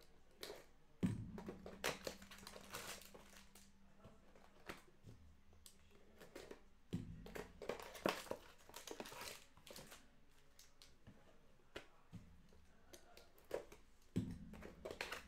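Foil trading-card pack wrappers crinkling and rustling, with the cards being handled: a scatter of irregular, faint crackles and light scrapes as packs are opened.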